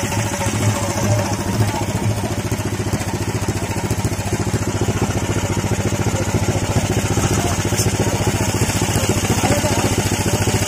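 A small engine running steadily at a fast idle, its rapid firing pulses even throughout.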